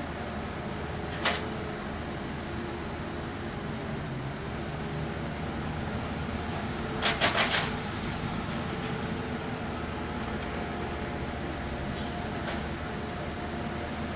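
Excavator's diesel engine running steadily, with a single sharp knock about a second in and a quick run of knocks about seven seconds in.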